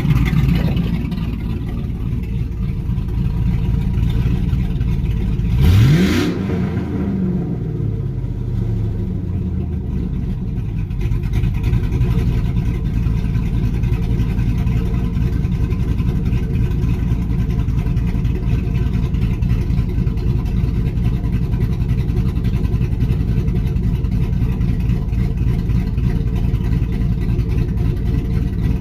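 Big-cam engine of an old truck idling with a choppy lope, revved once about six seconds in, rising and then dropping back to idle.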